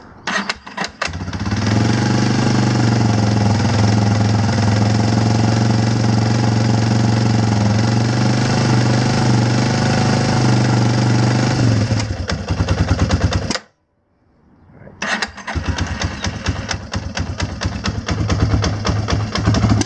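Yamaha Warrior 350's single-cylinder four-stroke engine running, with the choke off. It runs steadily for about ten seconds, then goes ragged and cuts out briefly. It comes back running unevenly with sharp pops. The popping is still there after a new intake manifold was fitted to cure an air leak, and the owner thinks it may be a cold-start problem.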